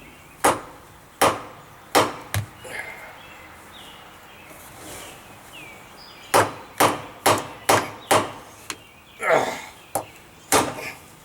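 Repeated sharp hammer blows on a nut threaded onto the end of a boat's steering shaft, struck to knock the stuck steering wheel loose from the shaft. Four blows come in the first two and a half seconds, then a quicker run of about six from about six seconds in.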